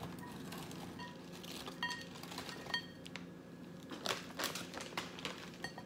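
A few light, ringing clinks against a salad bowl as croutons are added. About four seconds in, the plastic crouton bag crinkles briefly a few times.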